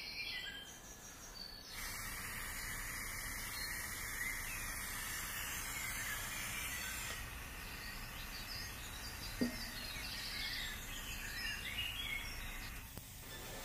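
Birds chirping over steady outdoor background noise. A steady hiss comes in suddenly about two seconds in and cuts off around seven seconds.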